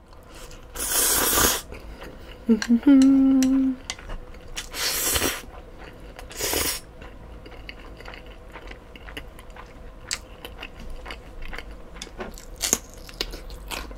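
Spicy cold mixed noodles (bibimmyeon) slurped in three loud bursts, about one, five and six and a half seconds in, with a short hummed "mm" between them. Then close-up wet chewing and small lip-smacking clicks.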